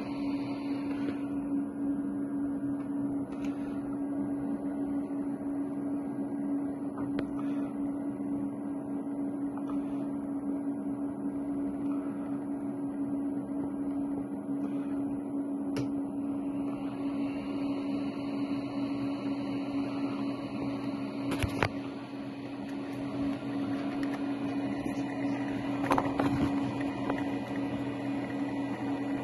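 A steady machine hum with one constant pitch, broken by a sharp click about two-thirds of the way in and a few knocks near the end.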